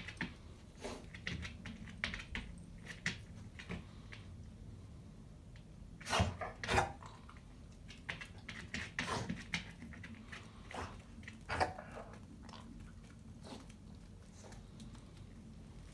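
A hound sniffing hard and scratching at the dirt along the edge of a plywood sheet, going after something beneath it: irregular sniffs and scrapes, the loudest cluster about six to seven seconds in.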